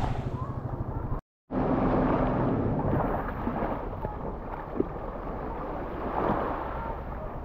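Wind rumbling on an action camera's microphone over small waves lapping at a sandy shore. The sound cuts out completely for a moment just after a second in, and there is one sharp click about five seconds in.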